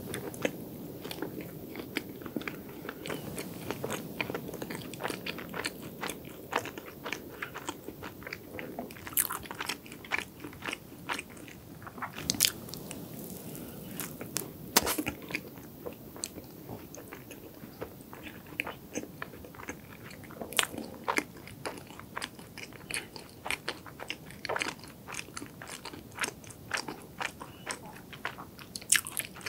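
Close-miked bites and chewing of a cream-filled chocolate choux pastry with a crunchy croquant top: crisp crackling crunches over soft, moist chewing, with a few sharper crunches along the way.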